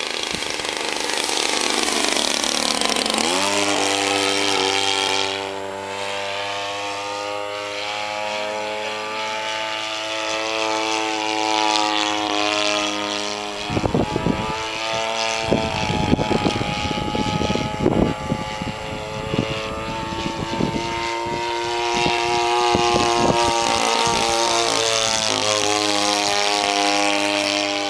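Small light-aircraft engine driving a propeller, running steadily. Its pitch falls sharply in the first few seconds, as it would when the aircraft passes by. Wind gusts hit the microphone for several seconds midway.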